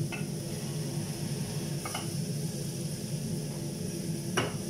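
Minced onions frying gently in a little oil in a small pan, a steady low hum and faint hiss, with a light click about two seconds in and a sharper tap near the end.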